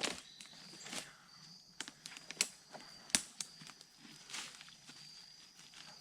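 Scattered sharp cracks and snaps with soft rustling: sticks and debris being pulled by hand from a beaver dam. A faint high steady whine runs underneath.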